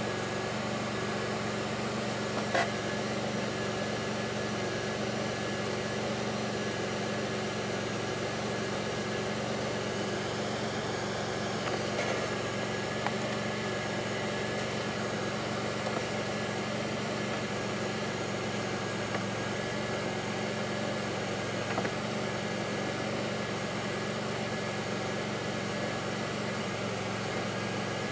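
2002 Pontiac Grand Prix's 3800 V6 engine running steadily at idle, with a few faint brief knocks. The owner complains of a rough idle with faint intermittent thumping that pulls the idle down.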